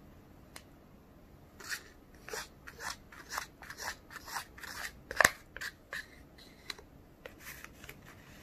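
Small plastic spoon scraping and tapping inside the plastic tray of a Popin' Cookin' candy kit: a run of short scraping strokes beginning about a second and a half in, with one sharper click about halfway through.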